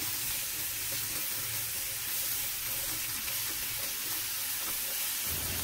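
Sliced mushrooms sizzling steadily in butter in a nonstick frying pan, stirred with a spatula as they shallow-fry.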